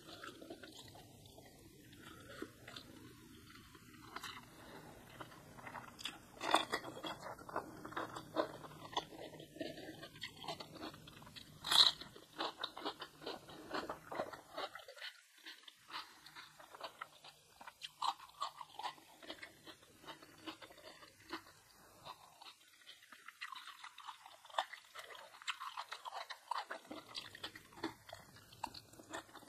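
A person chewing and crunching food close to the microphone, in irregular crunches, with one sharp, loud crunch about twelve seconds in.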